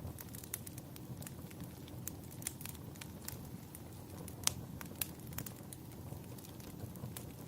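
Wood fire burning with a low steady rumble and irregular crackles and pops, one sharper pop about four and a half seconds in.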